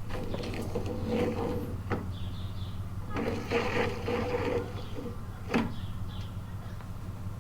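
Clicks, clatter and knocks of mower wheel parts being handled and fitted by hand, with two sharp clicks, one about two seconds in and one near five and a half seconds, over a steady low hum.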